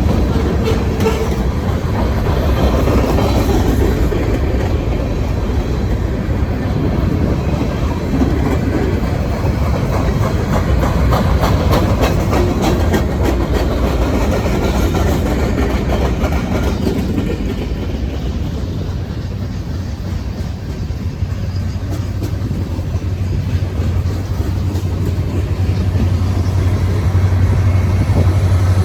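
Freight cars of a long Norfolk Southern merchandise train rolling past, with a steady rumble and wheels clicking over the rail joints. A low steady hum builds in the second half.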